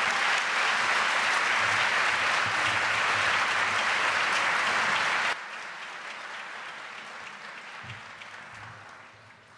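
Audience applauding. The applause drops suddenly in level about five seconds in and then dies away.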